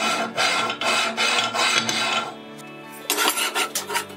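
Steel plate sliding and scraping in the steel channel of a homemade vise body, metal rubbing on metal for about two seconds, then another short scrape about three seconds in.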